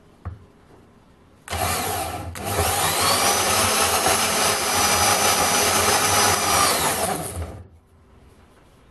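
VEVOR 1100-watt variable-speed portable bandsaw switched on about a second and a half in and cutting a flat steel bar on its lowest speed setting; its whine rises in pitch and then holds steady. It stops about seven and a half seconds in.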